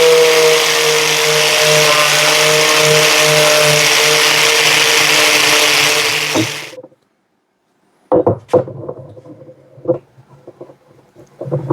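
Angle grinder running steadily against a rusty steel block clamped in a vise, cleaning off the rust, then shut off about six and a half seconds in. After a short silence come a few scattered knocks and clatter.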